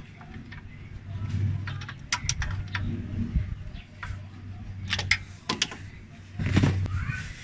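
Irregular metallic clicks and clinks of a hand tool on the belt tensioner's mounting bolt as it is tightened, with a louder scrape near the end, over a low steady hum.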